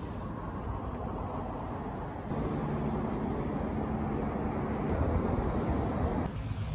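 Steady low outdoor rumble, like distant traffic. About two seconds in it jumps louder and a low hum joins it, and it shifts abruptly twice more near the end.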